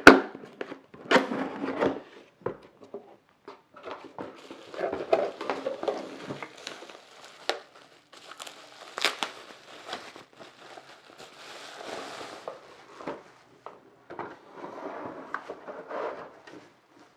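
A power supply being unpacked from its cardboard box and plastic wrapping: irregular crinkling and rustling of plastic and cardboard, with scattered sharp knocks and clicks.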